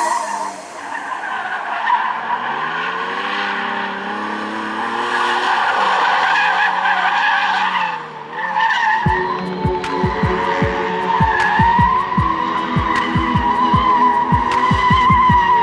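Drift car engine revving up and down while its tyres squeal in a long, wavering screech. A thumping electronic music beat comes in about nine seconds in and runs under the tyre squeal.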